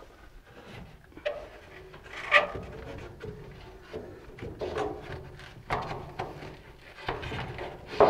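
Fiberglass furnace air filter being worked loose from the blower compartment: irregular scraping and rubbing with scattered knocks against the sheet-metal cabinet, the sharpest knock about two and a half seconds in. The filter had been sucked in against the blower motor's pulleys.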